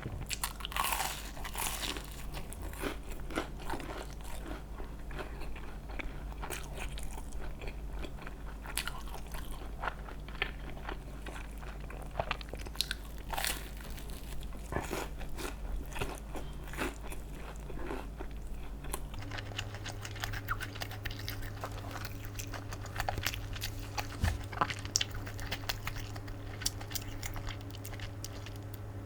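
Close-miked eating sounds: a person biting and chewing food, with frequent crisp crunches.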